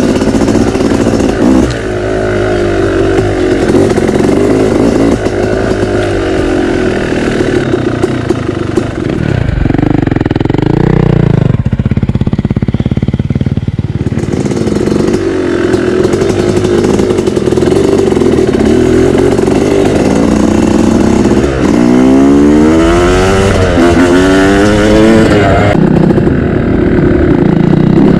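Dirt bike engine running on the trail, its revs rising and falling. The revs climb sharply about ten seconds in and again in several quick rises around twenty-two to twenty-five seconds, and the engine drops back to a lower, quieter running for a few seconds in between.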